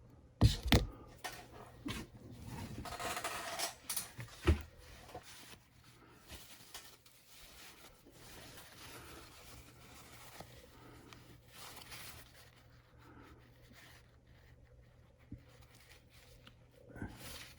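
Handling noise from working on metal parts at a bench: two sharp knocks in the first second, a rough scraping stretch, another sharp knock about four and a half seconds in, then faint small taps and rustles.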